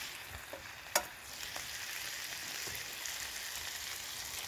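Bacon, potato cakes, mushrooms and an egg sizzling steadily in hot fat in a Petromax SP32 wrought iron skillet over a small wood stove, with small crackles and one sharp click about a second in.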